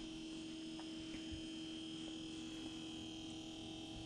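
Quiet room tone: a steady hum with a faint, constant high-pitched whine.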